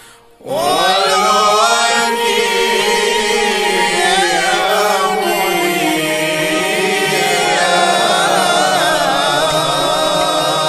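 Qaswida (Swahili Islamic devotional song) singing: after a short break, voices come in about half a second in with a long, winding sung melody over held notes.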